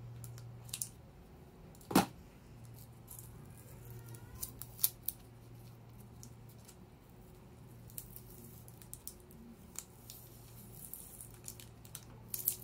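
Scissors snipping through tape binding a bundle of plastic vials, with a few sharp snips and handling clicks spread through; the loudest snip comes about two seconds in. A faint low hum runs underneath.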